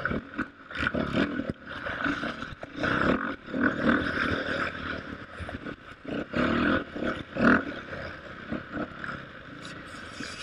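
KTM off-road motorcycle engine revving up and down in uneven bursts, with scattered knocks.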